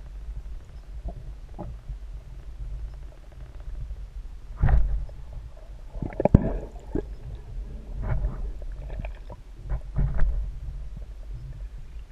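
Muffled underwater sound picked up through a GoPro's waterproof housing during a spearfishing dive: a steady low rumble, with several short bursts of bubbling and water movement, the loudest about two thirds of the way through.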